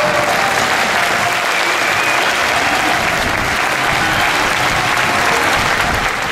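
Football stadium crowd applauding, a dense steady clapping with a few voices over it.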